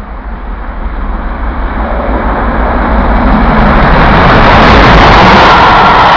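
Steam locomotive 34046 Braunton, a rebuilt Bulleid West Country class 4-6-2, approaching and passing with its train. The noise grows steadily louder over the first four seconds and then stays loud as the engine and its coaches go by.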